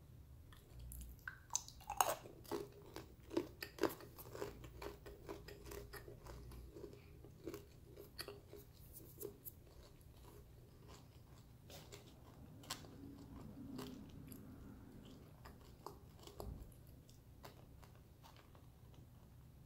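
Close-miked chewing of a chunk of Sandbar Super Grit clay: gritty crunches and crackles, dense through the first ten seconds and sparser after. The clay holds little crystals inside.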